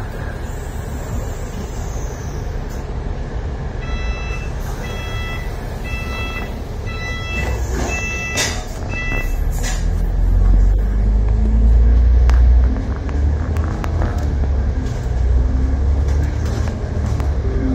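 Bus engine and road rumble heard from inside the moving bus, growing louder about ten seconds in as the engine pitch rises with acceleration. A series of about six evenly spaced electronic beeps sounds between about four and nine seconds in, with a sharp knock near the end of the beeps.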